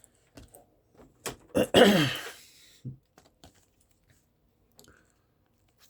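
A man's short wordless vocal sound, breathy and falling in pitch, about two seconds in, among a few faint light clicks from trading cards being handled.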